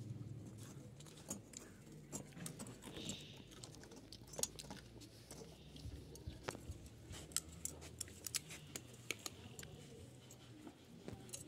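Faint, irregular small clicks and ticks as fingers handle steel razor blades and twist bare copper wire onto them.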